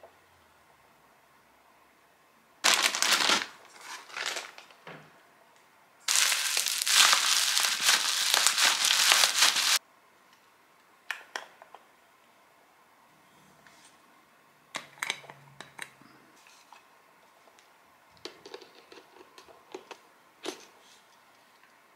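Plastic packaging crinkling in two spells, a short one about three seconds in and a longer, louder one in the middle, then scattered small clicks and taps of plastic lens and body caps being handled and a lens being fitted to a camera body.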